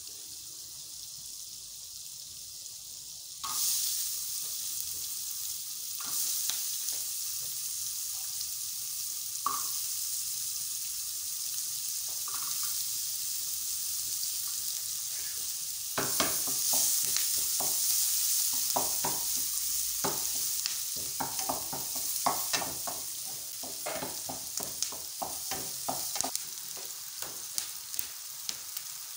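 Diced onions sizzling as they fry in melted margarine in a frying pan. The sizzle steps up about three seconds in and again about halfway through, and the second half has repeated scrapes and taps of a wooden spoon stirring against the pan.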